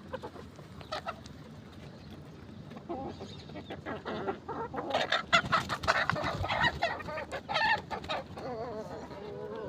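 Several chickens clucking, the calls starting about three seconds in and crowding together in the middle, with scattered short clicks among them.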